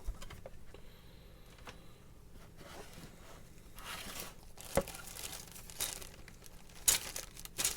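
Crinkling and rustling of a plastic model kit's bagged parts and cardboard box as it is opened and unpacked, with a sharp knock about five seconds in and a louder one near the end.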